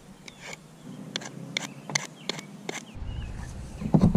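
Scattered light clicks and taps of camp cooking, then near the end loud thuds begin repeating a few times a second: rice being pounded in a mortar.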